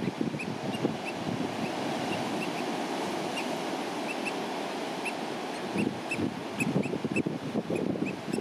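Eurasian oystercatcher giving a steady series of short, slightly rising piping calls, about two a second, over a low rush of wind.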